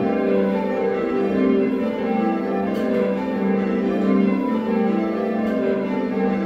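A ring of six Whitechapel church bells, cast 1978 with the tenor in G, rung in call changes by rope: strike follows strike in an even, unbroken rhythm, each bell humming on under the next. Heard from the ringing chamber beneath the bells.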